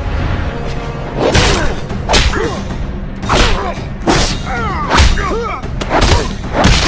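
Fight sound effects of heavy punches and blows, about seven of them at roughly one a second, with short grunts and whooshes between them, over a low music drone.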